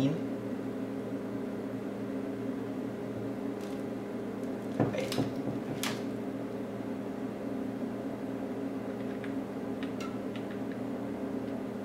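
Steady hum of running bench electronics, made of several even tones, with a few light clicks from handling a test probe and oscilloscope controls, about five and six seconds in and again near ten seconds.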